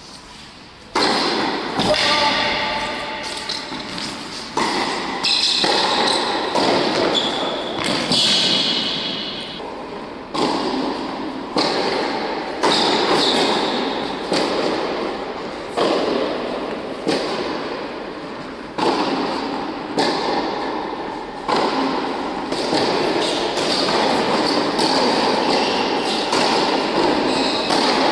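Tennis ball struck by racket strings and bouncing on an indoor hard court, first a serve about a second in and then rally shots. Each sharp hit or bounce comes about every one to two seconds and rings on in a long echo in the large hall.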